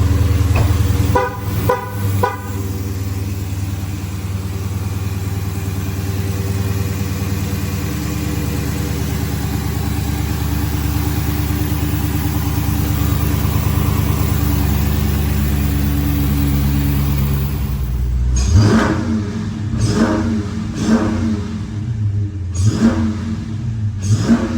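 Dodge Challenger Scat Pack's 6.4-litre HEMI V8, breathing through a new cold air intake, idling steadily. Near the end it is revved in about five quick blips, each rising and falling in pitch.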